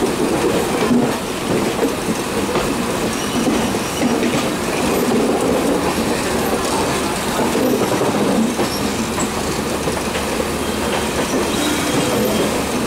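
Express train coaches running close alongside a moving EMU local train: a steady rumble and clatter of steel wheels on the track, with faint high wheel squeal now and then, heard from the local's open doorway.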